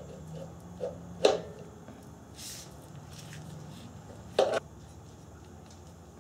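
Wrench and metal fittings clinking and knocking as the steel EGR pipe is fastened onto the engine: a few light taps, with two sharper metal knocks about a second in and past four seconds, over a faint low hum.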